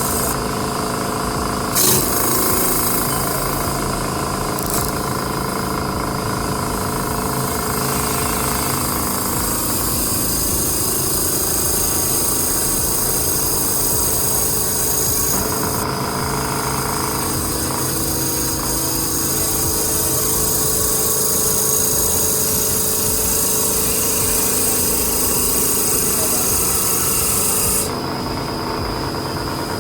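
Automatic CNC wood lathe running and turning a wooden workpiece: a steady machine whine with cutting noise, changing in character a few times.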